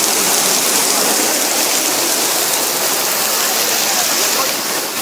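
Loud, steady rush of water from a torrential downpour.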